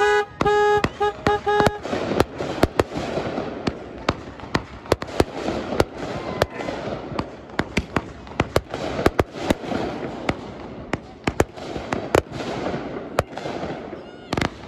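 A horn sounds one longer blast and then several short toots, then fireworks crackle and pop for the rest of the time: a fast, dense crackle under many sharp cracks and bangs from a ground fountain and small aerial bursts.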